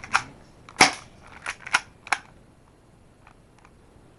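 Cheap spring-powered airsoft pistol firing a BB: one sharp snap about a second in, with a few smaller mechanical clicks just before and after it.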